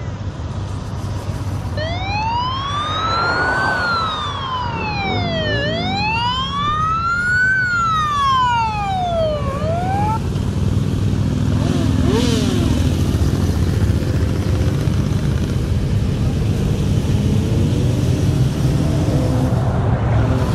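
A police escort siren wailing in two slow rising-and-falling sweeps that stop about halfway through, followed by the steady rumble of a long column of motorcycle engines riding past, growing louder toward the end.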